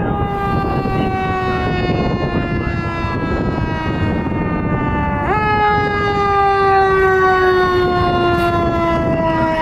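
Fire engine's Federal Q mechanical siren coasting down with a slowly falling wail, given a quick burst about five seconds in that spins it sharply back up before it winds down again.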